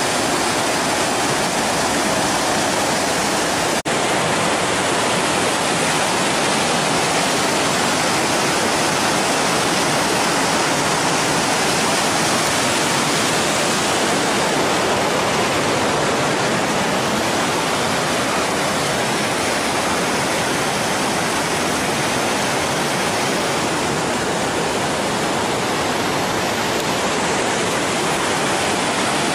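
Waterfall and cascading river water rushing in a loud, steady wash, with a momentary break in the sound about four seconds in.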